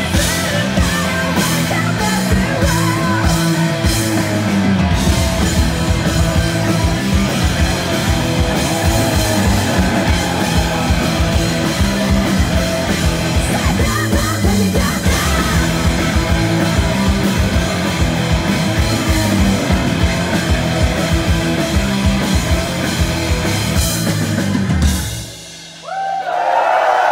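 Hard-rock band playing live through a club PA: distorted electric guitars, bass and a drum kit, heard from the audience. The song stops abruptly near the end, and the crowd cheers and whistles.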